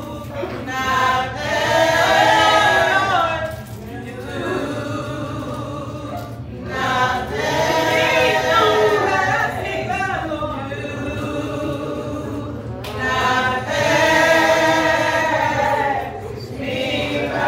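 A small church choir singing together, in sung phrases of a few seconds each with short breaks between them.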